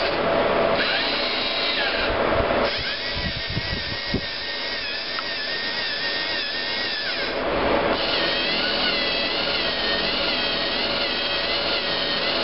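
LEGO NXT servo motors and their plastic gear trains whirring as a SCARA robotic arm grips a chess piece and moves it. The whine wavers in pitch and shifts a few times as one motion of the arm gives way to the next.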